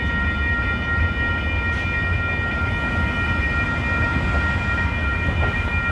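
Pan Am Railways freight train running past a grade crossing: a steady low rumble with constant high-pitched ringing tones above it.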